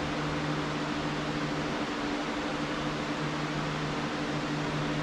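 Steady whir of the cooling fans in a row of powered-on moving-head stage lights, with a low electrical hum.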